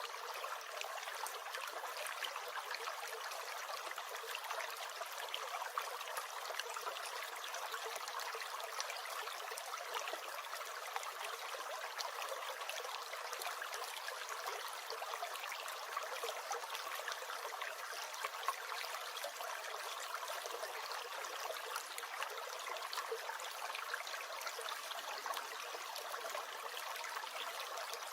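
A stream gurgling, with a steady, even rush of flowing water.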